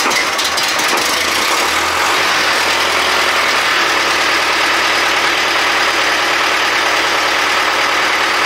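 Fendt Farmer 105S diesel engine running just after a cold start in frost, helped by a burner flame drawn into its air intake; its low note shifts and steadies about four seconds in.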